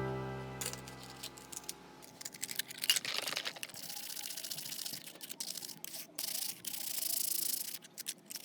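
Music dies away, followed by small sharp clicks and taps with stretches of high hissing rubbing: hand work on a phone's small parts.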